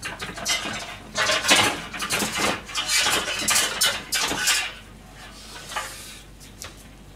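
Metal kitchenware clattering: pans and utensils knocking and rattling against each other in a dense run through the first half, then a few lighter knocks near the end.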